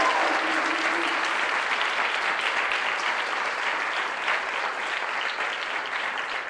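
Audience applauding steadily, gradually getting quieter toward the end.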